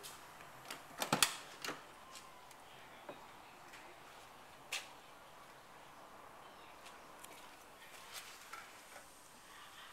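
Ford Mustang's door being opened: a quick cluster of sharp latch clicks with a creak about a second in, then a single click near the middle and a few faint ticks later. No engine is running.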